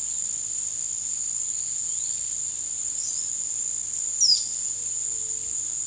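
A steady, high-pitched insect drone, like crickets or cicadas, with a few faint bird chirps; a short falling chirp about four seconds in is the clearest.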